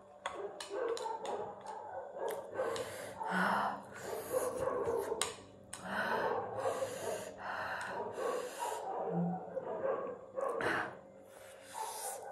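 Noodles being slurped and chewed close to the microphone in a series of short, wet mouth noises, with dogs barking at times.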